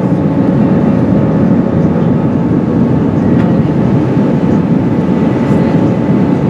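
Steady cabin roar of an Airbus A320-232 in flight, heard from a window seat over the wing: dense low engine and airflow noise from its IAE V2500 turbofans, with faint steady whining tones above it.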